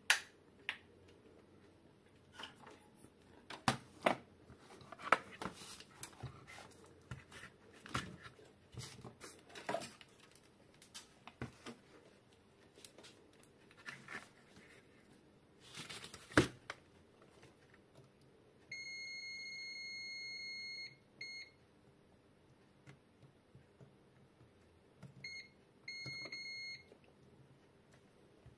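Sharp clicks and knocks of a circuit board and tools being handled, then a digital multimeter's continuity buzzer. It gives a steady high beep for about two seconds, a short beep just after, and a few more short beeps near the end. The beeps sound as the probes meet a short circuit on the power-supply board.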